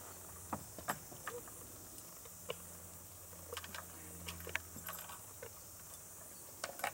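Scattered light clinks and knocks as a wooden farm gate's latch is worked by hand from horseback, with a quick cluster of them near the end.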